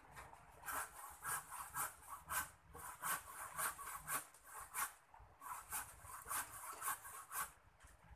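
Rhythmic rasping strokes, about three a second, in two runs with a short break about five seconds in.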